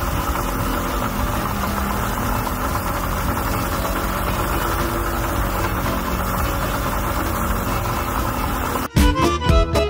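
Mercury outboard motor running steadily at idle with its cowling off while Sea Foam spray is fed into the carburetors to burn off carbon deposits. About nine seconds in, the engine sound cuts off abruptly and music takes over.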